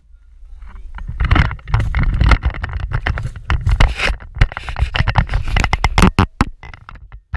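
Rustling, scraping and knocking close to the microphone, with a low wind-like rumble under it. The knocks come in clusters, several close together between about four and six and a half seconds in.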